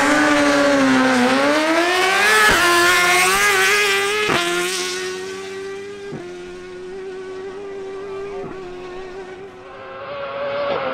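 Suzuki GSX-R1000's inline-four engine launching hard off the drag-strip line and accelerating flat out. Four brief cuts break the sound as it shifts up through the gears, and it fades as the bike pulls away. Near the end the engine grows louder again as the bike nears.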